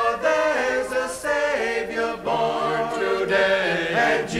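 Chorus singing a Christmas carol in harmony, played from a 1959 stereo LP record.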